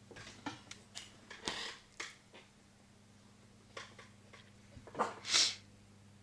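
A pet dog making a string of short, breathy noises and small clicks, the loudest a pair of bursts near the end.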